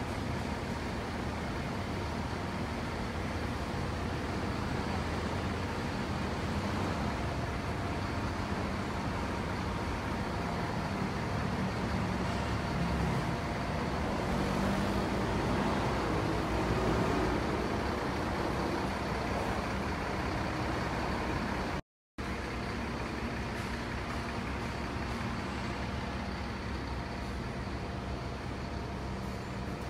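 Steady road traffic on a busy city street, cars, buses and trucks running past. One vehicle passes louder, swelling and fading, about halfway through. The sound cuts out completely for a split second about two-thirds in.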